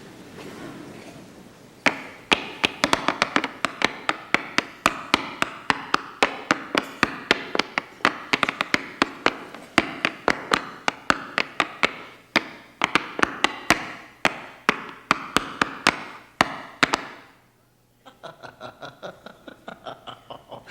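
Tap shoes tapping on a wooden stage in a quick, irregular tap-dance rhythm, many sharp clicks a second. The taps stop briefly near the end, then come back fainter and faster.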